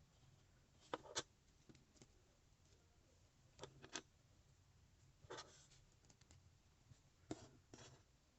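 Small plastic Lego Technic pieces clicking and tapping as they are handled and pressed together, in four brief pairs of sharp clicks a second or two apart.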